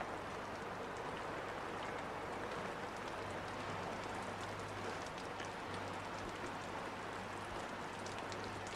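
Steady rain falling, an even hiss with a low hum underneath and a few faint clicks in the second half.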